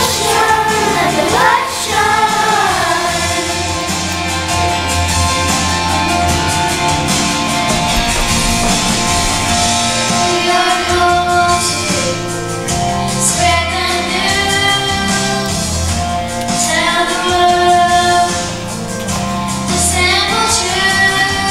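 Worship song with children singing over instrumental accompaniment. The sung phrases come and go over a steady musical backing.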